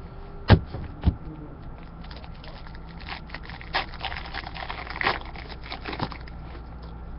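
Trading cards and packaging being handled: two sharp knocks about half a second and a second in, then a run of light crackling, rustling and clicking.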